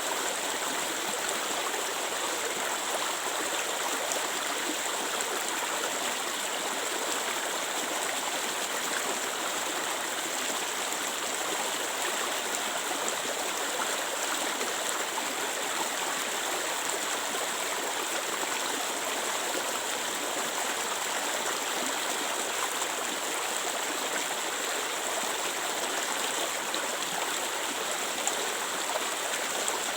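Clear water flowing steadily over a stream bed, an even rushing and babbling without break.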